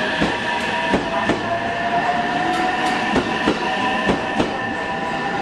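JR West 227 series electric train pulling out of the station. Its motor whine rises slowly in pitch while the wheels click in pairs over the rail joints, about one pair a second.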